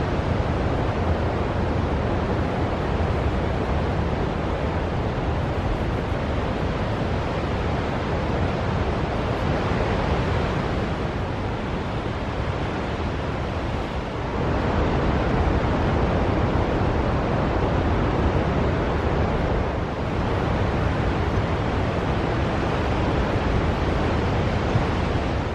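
Ocean surf washing in a steady rush that swells and eases, louder from about halfway through, with some wind on the microphone.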